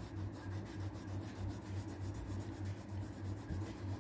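A crayon scrubbing back and forth on paper in quick, repeated strokes as a picture is coloured in.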